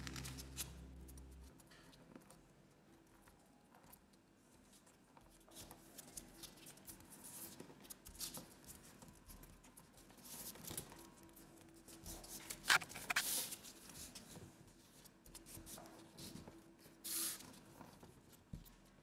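Faint rustling and creasing of a sheet of A4 printer paper being folded by hand, with scattered short crinkles and a few sharper ones about two-thirds through and near the end. Background music fades out in the first second or so.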